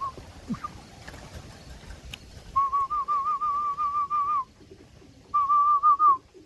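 A person whistling a warbling, trilled tone to call racing pigeons in to the loft: a long phrase of about two seconds, then a shorter one near the end.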